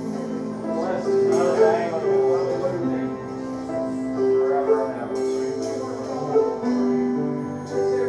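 Slow church worship music: sustained keyboard chords with a held melody line, changing every second or so.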